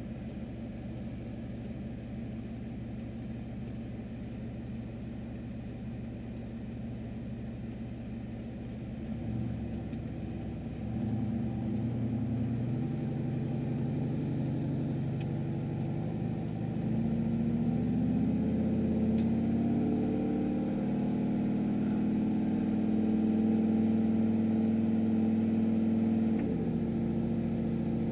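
Turbocharged Chevrolet Silverado's engine and dual-exit exhaust heard from inside the cab. It idles steadily for about nine seconds, then pulls away and accelerates moderately, the engine note rising in steps. Near the end the note drops back a little.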